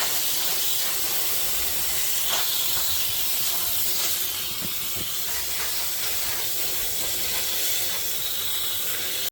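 Tap water running and spraying steadily over a large kudzu root as it is washed, with a few light knocks; it cuts off abruptly at the end.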